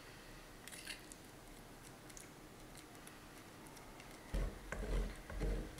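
Two metal spoons scooping soft mashed-potato and bacon filling into hollowed potato skins: faint squishy scrapes with a few light clicks of metal. Near the end come several dull low thumps.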